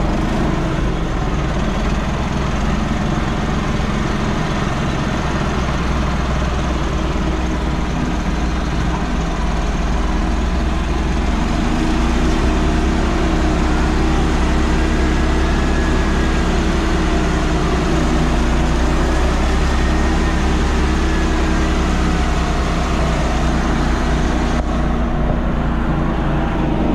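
Tractor engine running steadily under way, a little louder and higher from about twelve seconds in.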